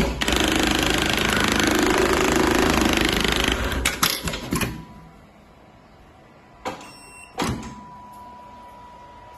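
Programmable pattern sewing machine starting a test run: a loud, steady machine noise for about three and a half seconds, then several sharp clicks.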